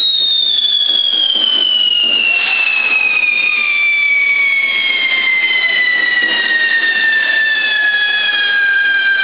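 Whistling firework charges on a toro de fuego's horns, burning over a rushing hiss of sparks. Several shrill whistles sound together, their pitch falling slowly and steadily throughout as the charges burn down.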